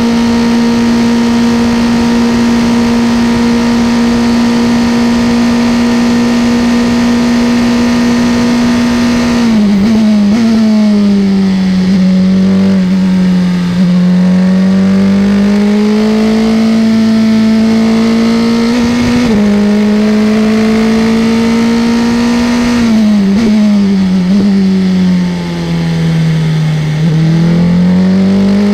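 Formula 3 single-seater racing engine heard onboard, held at a steady high note flat out for about the first third. The note then falls as the car brakes, climbs again through the corner exit, drops a second time under braking and starts rising again near the end.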